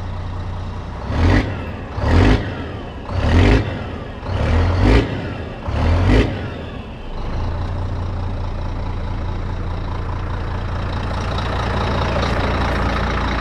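Scania 124G 400's 12-litre inline-six diesel, its throttle blipped five times, each rev rising and dropping back within about half a second, then settling to a steady idle for the rest of the time.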